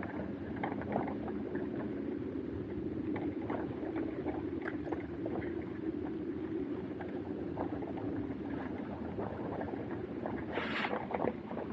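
Steady rumble of riding along, with wind on the microphone and many small rattles and clicks from the ride, and a brief hiss near the end.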